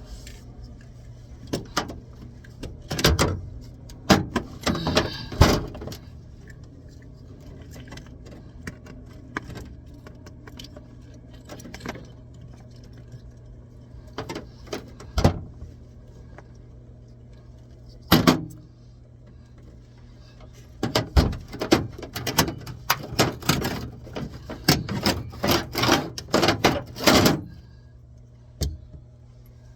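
Intermittent clicks, knocks and rattles from tools or parts being handled during plumbing work, with a few at first, single knocks in the middle and a dense run in the last third. A steady low hum runs underneath.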